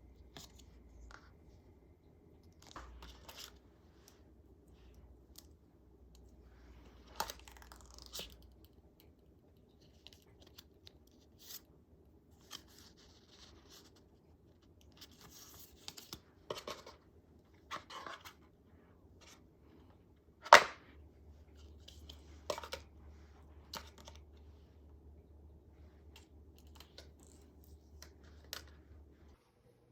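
Product packaging being handled and opened by hand: scattered short rustles and clicks, with one sharp click about two-thirds of the way through.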